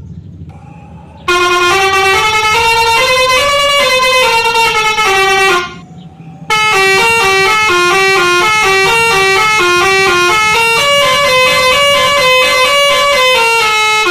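Basuri 'telolet' multi-tone bus horn playing a stepping melody of held notes, starting about a second in, breaking off briefly near the middle and starting again. A low hum lies underneath.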